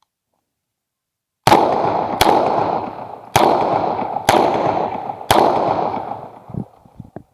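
Five shots from a 9 mm Uzi Pro pistol, starting about a second and a half in and spaced about a second apart, each followed by a long echoing decay.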